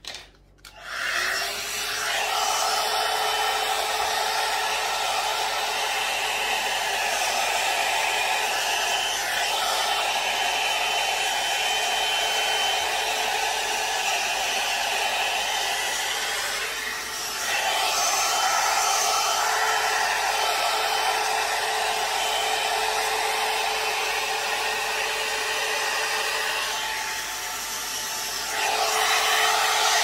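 One-step hot air brush (hair dryer brush) starts with a click and comes up to speed within about a second. It then runs steadily, a blowing hiss with a thin motor whine, dipping briefly twice, about halfway through and near the end, and coming back louder at the close.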